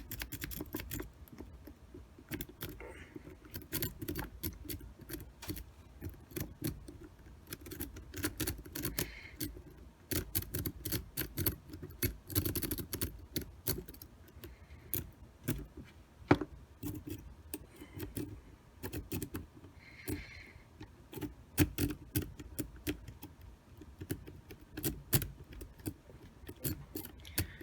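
A triple peak rake scrubbing in and out of the keyway of a Master Lock 532 five-pin tumbler padlock under light tension. It makes a continuous, irregular stream of small metallic clicks and scrapes as the pins are bounced.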